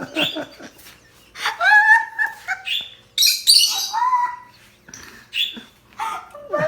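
Pet birds chirping and calling, a series of short calls with gaps between them.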